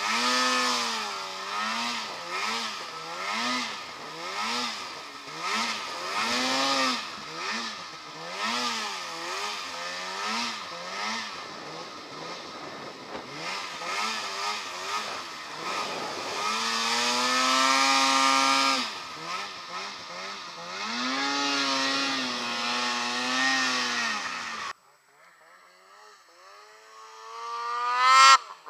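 Polaris snowmobile engine revving up and down over and over as the sled ploughs through deep powder. After a sudden cut, another snowmobile's engine climbs steeply in pitch to a loud peak near the end.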